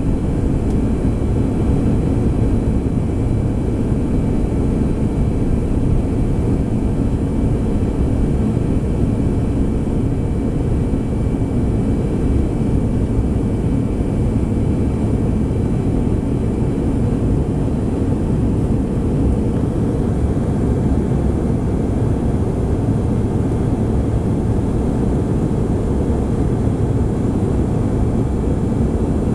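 Steady cabin roar inside a Bombardier CRJ regional jet in flight: a dense, low rush of engine and airflow noise, with a faint high whine that fades out about two-thirds of the way through.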